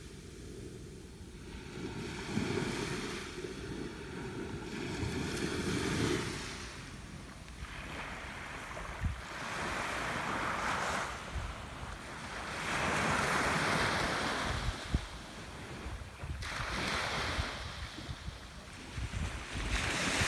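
Surf washing onto a beach, swelling and fading every few seconds, with wind rumbling on the microphone for the first six seconds or so.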